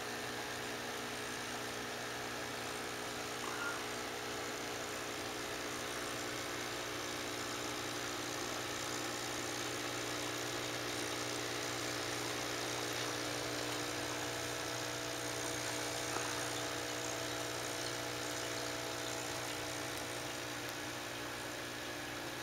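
Aquarium air stones bubbling steadily, a constant fizz over a steady machine hum.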